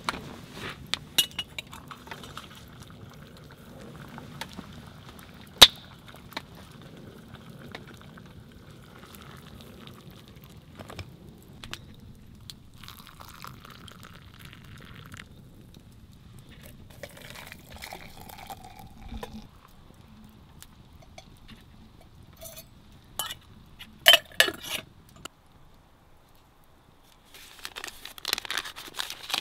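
Wood fire crackling, with scattered sharp pops. About halfway through, water pours from a stainless steel mug into a wooden kuksa cup, followed by a few metal clinks and, near the end, the crinkle of a plastic food packet being handled.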